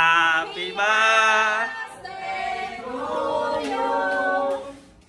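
A group of women singing a birthday song together in long held notes, fading out near the end.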